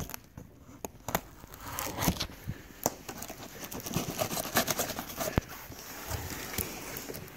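Clear plastic packing tape on a cardboard box being slit with a scalpel and pulled off: irregular crackling and tearing with scattered sharp clicks.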